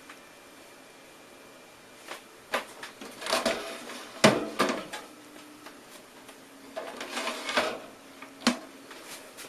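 Handling noise: a few sharp clicks and knocks with rattling scrapes, in one cluster from about two to five seconds in and another from about seven to eight and a half seconds in, the loudest a single knock a little after four seconds.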